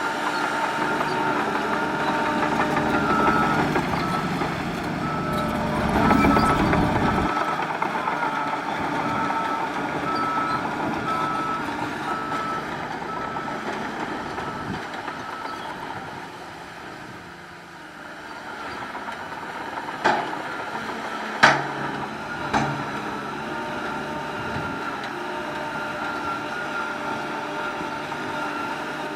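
Diesel engines of heavy earthmoving machines running, with a reversing alarm beeping steadily from about three seconds in until a little past halfway. The engine noise is loudest in the first seven seconds, and three sharp bangs come about two-thirds of the way through.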